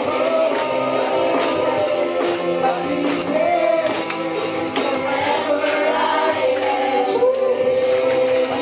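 Upbeat contemporary worship song: voices singing together over a steady drum beat.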